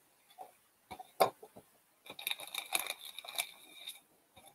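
Foil trading card packs being handled: a couple of sharp knocks about a second in, then a stretch of crinkling and rustling of the foil wrappers for about two seconds.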